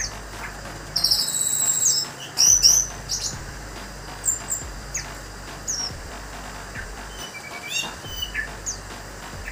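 Orange-headed thrush (anis merah) singing: a fast, high trill of rapidly repeated notes about a second in, then a few loud sweeping whistles, followed by scattered short whistled notes.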